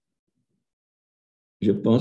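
Dead silence, then speech resumes about a second and a half in.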